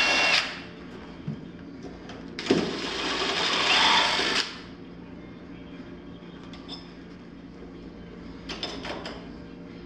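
Cordless drill/driver running in bursts on screws in the mortise lock of an aluminum storefront door: one burst stops about half a second in, another runs for about two seconds from about 2.5 s in, and a few short blips come near the end.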